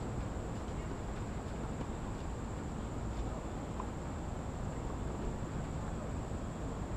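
Outdoor ambience: a steady, high-pitched insect drone with a low rumble of wind on the microphone.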